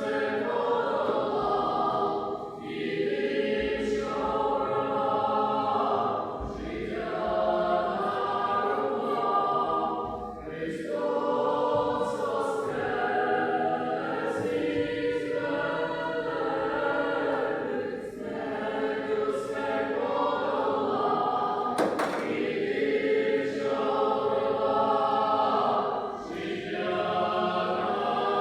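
Choir singing a religious chant in long held phrases of several seconds each, with brief breaths between phrases.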